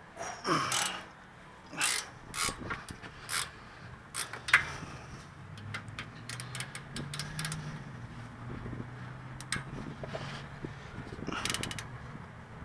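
Hand ratchet with an 18 mm socket clicking in short runs as the rear wheel hub bearing's mounting bolts are worked loose. There are several sharper clacks in the first few seconds and a quick bunch of clicks near the end.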